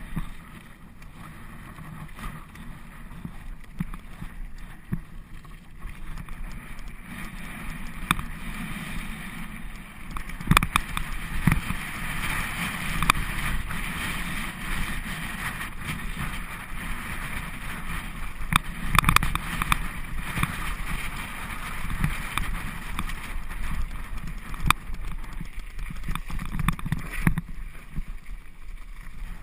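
Specialized Camber full-suspension mountain bike running fast down a loose gravel and dirt track: the tyres rumble and crunch over stones, with wind on the microphone and sharp knocks and rattles from the bike over bumps. It gets louder from about ten seconds in.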